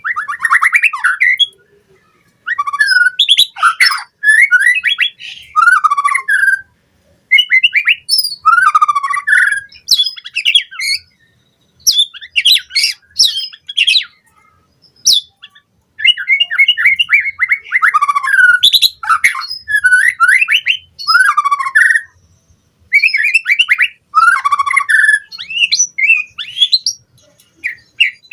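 White-rumped shama (murai batu) singing: loud bursts of rapid, varied whistled and chattering phrases, each lasting a few seconds, with brief pauses between them.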